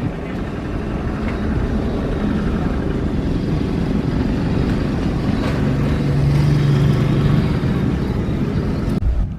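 Passing aircraft engines: a loud, low rumble that swells to a peak with a steady hum about two-thirds of the way through, then cuts off abruptly near the end.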